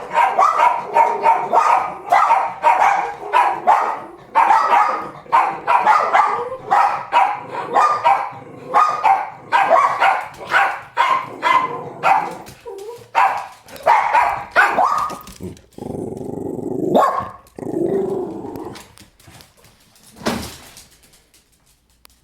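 Two dogs barking at another dog, fast and repeated at about two to three barks a second for some fifteen seconds; the barking then breaks into two longer, lower sounds and a few last barks before fading out.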